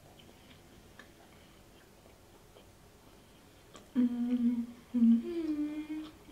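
A woman hums a closed-mouth "mmm" while chewing food, a sound of enjoying it. After a few quiet seconds with soft chewing clicks, two drawn-out hums start about four seconds in; the second one steps up a little in pitch and holds.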